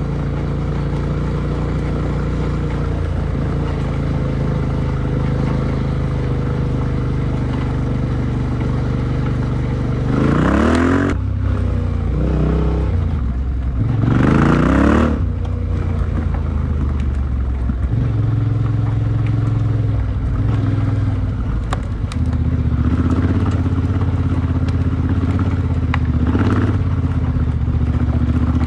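Yamaha Tenere 700's parallel-twin engine through an Akrapovic exhaust, running at steady revs, then revving up sharply twice about ten and fourteen seconds in before settling back to steady running.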